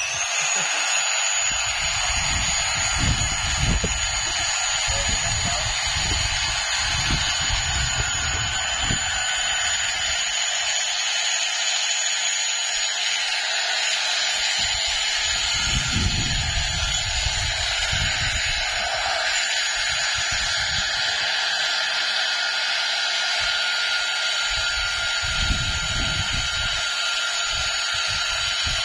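Handheld electric air pump running steadily, a rushing whine with high steady tones, as it blows air into an inflatable pool through its valve.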